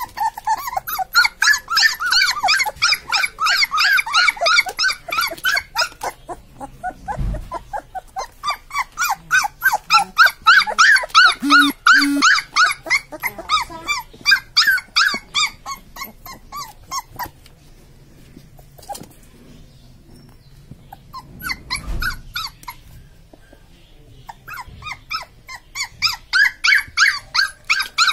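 Labrador puppies crying with short, high-pitched whines and yelps, a few a second, in long runs with a quieter spell in the later middle.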